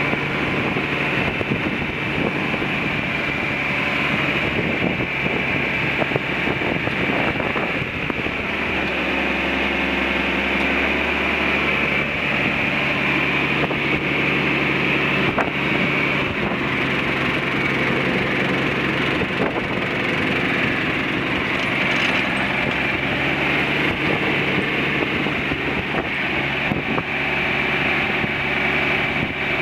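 John Deere 4520 tractor's six-cylinder turbocharged diesel engine running steadily.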